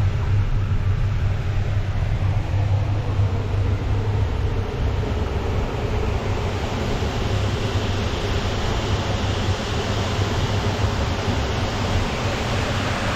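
Wind buffeting the microphone on a moving open chairlift: a steady low rumble under a hiss that grows a little brighter about halfway through.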